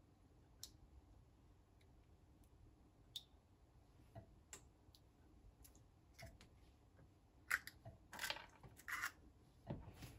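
Quiet room with scattered faint small clicks and taps, then a few louder short scraping, rustling handling sounds about three-quarters of the way through.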